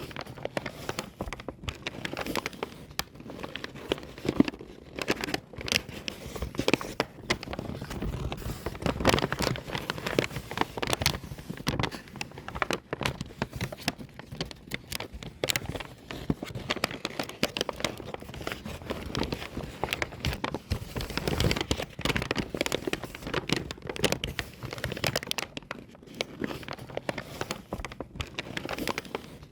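Paper bag being crumpled by hand: continuous irregular crinkling and crackling, with sharper crackles scattered throughout.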